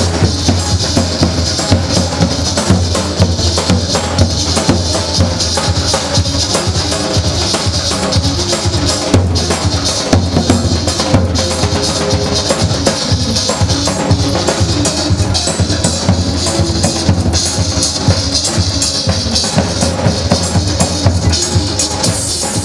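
Live dance music with a davul, the large double-headed drum beaten with a stick, keeping a steady, even beat over keyboard accompaniment.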